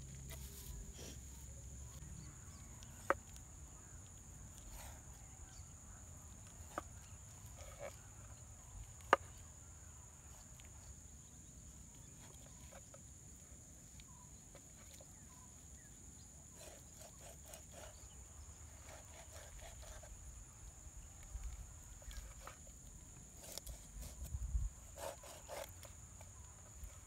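A machete blade knocking and thudding against a raw chicken on a wooden board, in a cluster of blows near the end. Faint outdoor ambience runs throughout, with a steady high-pitched drone and a few sharp isolated clicks in the first half.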